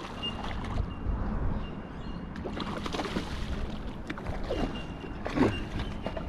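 Water splashing and sloshing as a hooked Australian salmon is played at the surface, with a louder splash about five seconds in.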